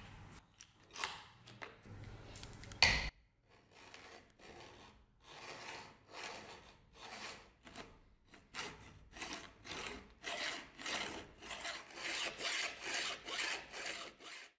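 Flat hand file being stroked back and forth across the rusty, pitted steel tang of a dagger held in a vise. The strokes start slow and speed up to two or three a second near the end. Before the filing there is light rubbing and one sharp knock about three seconds in.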